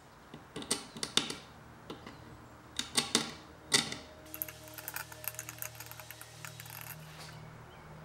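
Sharp metallic clicks and scrapes from a bent wire pick working in an old drawer lock, loudest in a cluster around the middle, followed by a run of lighter, quicker ticking and clinking.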